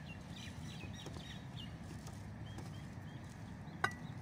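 Small birds chirping in a run of short quick notes over a steady low background rumble; near the end a plastic spoon clicks once, sharply, against the bowl.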